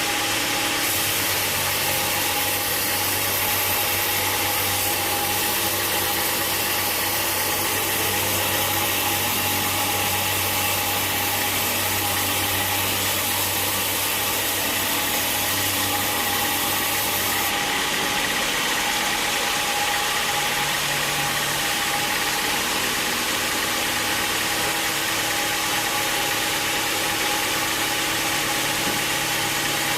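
Sawmill machinery running steadily with an engine-like hum and a constant mechanical noise. The sound changes a little about two thirds of the way through, as a low hum and a high hiss drop away.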